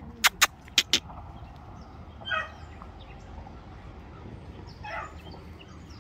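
Four sharp clicks in quick succession in the first second, a person calling a beagle puppy, then a short animal call about two seconds in and another near five seconds, over faint bird chirps.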